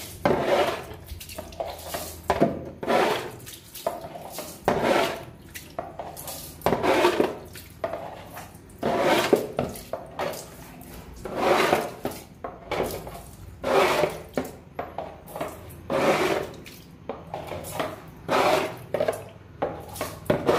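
Water splashing again and again into the oily bilge of a wooden boat's engine compartment as it is washed out, a splash every second or two.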